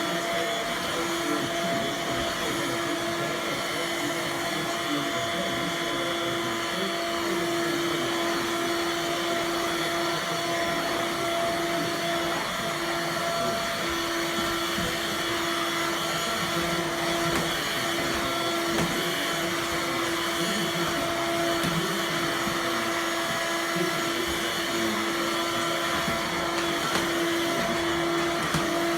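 Vacuum cleaner running steadily, its motor giving a constant hum with one clear steady tone that wavers and dips briefly now and then.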